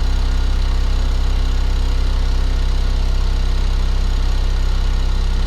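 Homemade magnetic heater running: a 12-volt DC motor spinning an aluminium wheel of magnets, with a small fan, giving a steady low hum.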